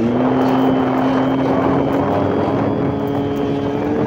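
Motor scooter engine running steadily under way, a droning 'furr' whose pitch creeps slowly upward, over a constant rushing noise of the ride.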